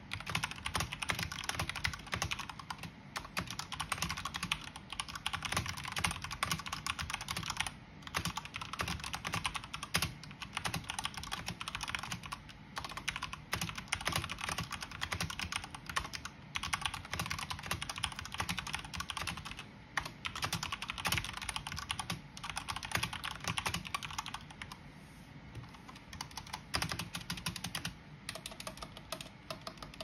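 Fast typing on a Corsair K70 Rapidfire mechanical keyboard with linear Cherry MX Speed Silver switches: a dense, rapid clatter of keystrokes broken by short pauses every few seconds, thinning to scattered keystrokes over the last few seconds.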